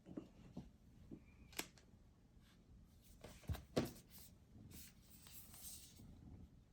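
Quiet handling noises: scattered soft clicks and taps, the loudest just under four seconds in, with a few brief rustles of packaging after it.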